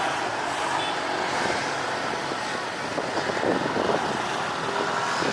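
Steady vehicle noise, with a brief murmur of voices about three seconds in.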